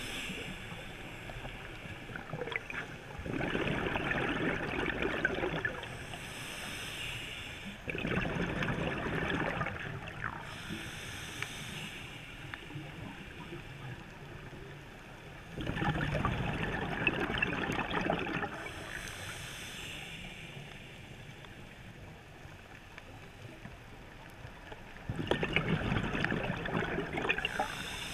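Scuba diver breathing through a regulator underwater: four long bubbling exhalations, each followed by a short hiss of inhalation, with quieter gaps between.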